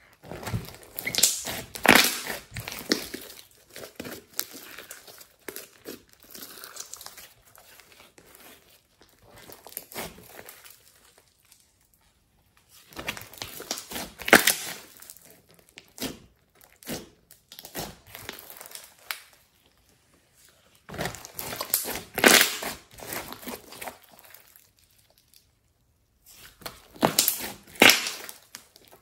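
Hands kneading, squeezing and stretching a thick, glossy slime, making sticky crackling and tearing sounds. They come in bursts: loud at the start, again about halfway, a little later and near the end, with quieter kneading between.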